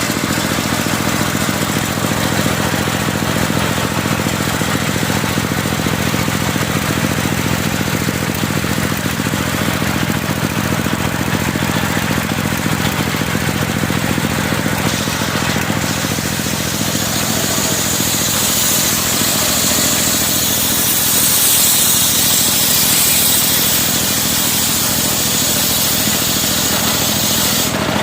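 Circular sawmill's engine running steadily. From about two-thirds of the way through, a bright high hiss grows louder, as the saw blade cuts through a thick plank of medang timber.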